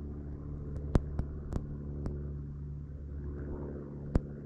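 A motor's steady low drone, holding one pitch, with a handful of sharp clicks over it, the loudest about a second in and near the end.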